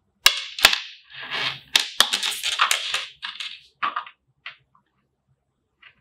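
Close-up handling of a Baseus magnetic TPU cable winder and an earphone cable: two sharp snaps, then a run of rubbing, scraping and clicking that dies away after about four seconds.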